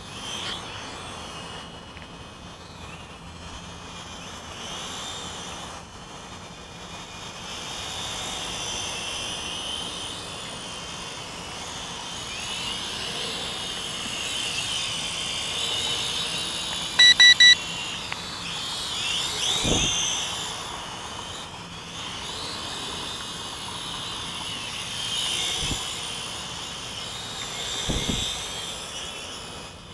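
Small quadcopter's propellers and motors buzzing, with a high whine that rises and falls as it flies and hovers. About halfway through there are three short electronic beeps, the loudest thing heard, and a dull thump follows a few seconds later, with another near the end.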